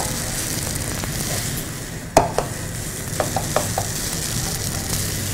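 Silicone spatula stirring and scraping a thick semolina and potato dough in a nonstick frying pan over a soft, steady sizzle of frying. A few sharp knocks of the spatula on the pan, the loudest about two seconds in.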